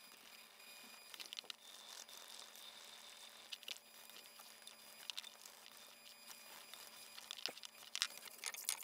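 Brass wire brush scrubbing a 40-pound iron dumbbell in faint, irregular scratching strokes, working at the last quarter-sized spots of rust left after repeated oxalic acid soaks.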